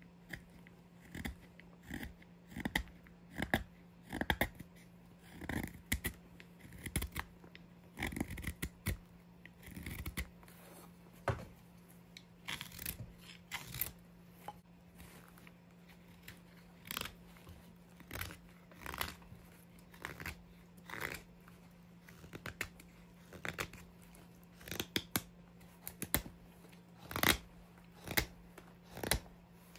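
Mora 106 carving knife slicing shavings off an oak spoon blank: short scraping cuts that repeat unevenly about once a second, over a steady low hum.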